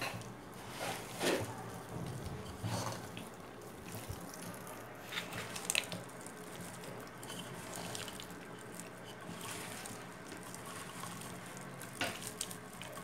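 A bare hand squishing and kneading chicken wings in a thick wet gram-flour and cornflour marinade in a stainless steel bowl: irregular wet squelches with a few sharper clicks.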